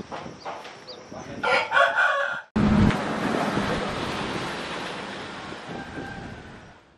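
A rooster crowing once for about a second, beginning about one and a half seconds in, over light knocks that fit footsteps. It cuts off suddenly and is followed by a low thump and a steady hiss that fades away.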